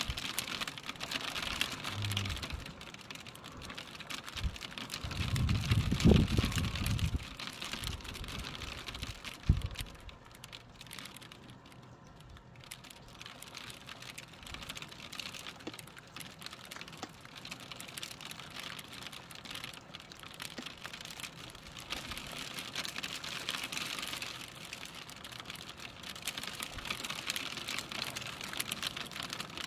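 Raindrops falling in a dense, irregular patter on a hard surface, heavier at the start and again near the end. A low rumble swells and fades about six seconds in, and there is a single knock a few seconds later.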